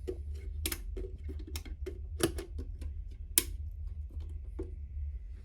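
Electro-Harmonix Poly Chorus guitar effects pedal, its feedback turned all the way up, putting out irregular crackling clicks over a steady low hum.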